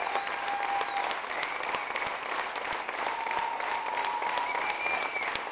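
Large theatre audience applauding at a curtain call: dense, sustained clapping, with a few long calls from the crowd rising above it.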